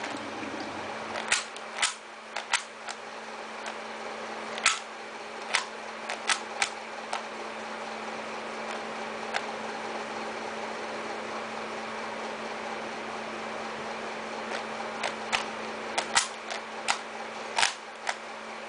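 Microwave oven running with a steady hum, with irregular sharp clicks and pops in clusters over it.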